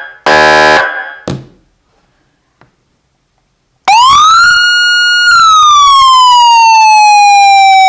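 Federal Signal SM4000 electronic siren at high volume: a short horn blast near the start, then after a pause a loud siren wail that rises, holds at its top pitch for about a second and slowly falls away. It reads up to 129 dB on a meter at close range.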